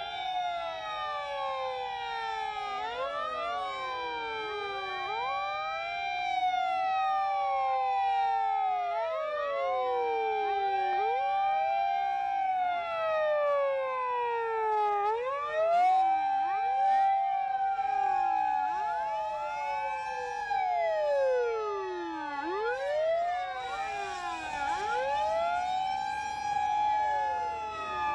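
Sirens of a convoy of Japanese fire-service emergency vehicles (fire engines, rescue trucks and ambulances) under emergency running. Several sirens sound at once, each wail rising, holding a high note and falling at its own pace, so the wails overlap and weave across each other.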